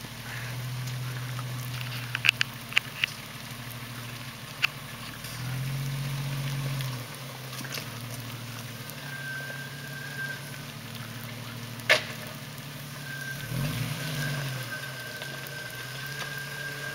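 Jeep Cherokee XJ engine running at low revs while crawling in four-wheel-drive low, with a short rise in revs about six seconds in and a wavering change in revs near the end. Scattered clicks early on and one sharp knock about twelve seconds in.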